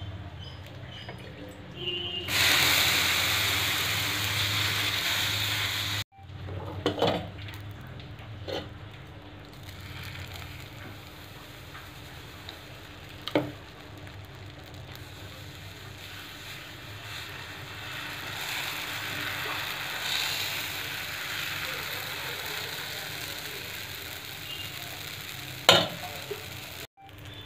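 Sizzling on a hot iron dosa tawa: a loud hiss for a few seconds near the start, then dosa batter sizzling more quietly as it is poured and spread. A few sharp knocks come through it.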